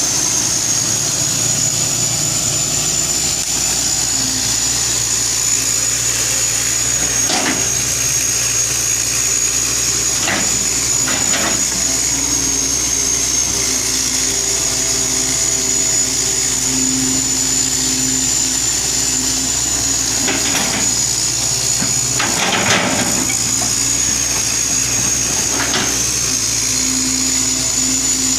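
1983 Hitachi excavator running steadily under a high thin whine, with about six separate metallic knocks or clanks spaced out over the stretch.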